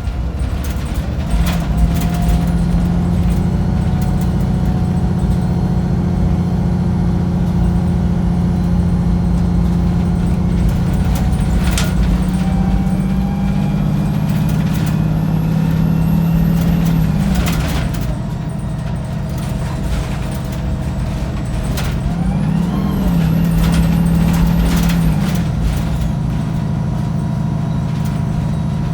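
Diesel engine of a Wright Pulsar 2 single-deck bus heard from on board, working hard under load with a steady drone and thrash. It eases off about two-thirds of the way through, then surges up and pulls hard again for a few seconds near the end. Body rattles and a few sharp knocks sound over it.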